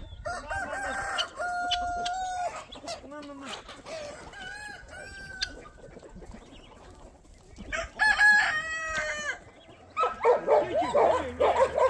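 Rooster crowing three times, each crow a long call held steady, the third the loudest, over hens clucking. Near the end a dog breaks in with a run of yips and whines.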